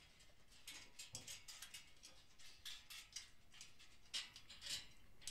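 Near silence, with faint, irregular clicks and rustles.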